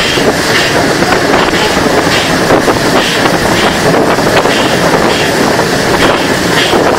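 Train hauled by a TKt48 steam tank locomotive running at speed, heard from alongside the engine: a dense rushing noise of wind on the microphone and rolling wheels, with a faint regular beat about twice a second.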